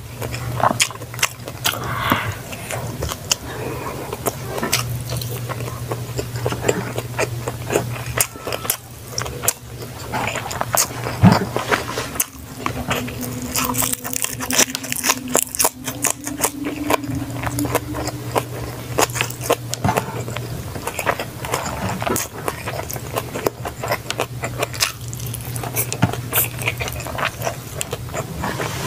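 A person chewing and biting food close to the microphone: many small irregular crunches and wet mouth clicks, over a steady low hum.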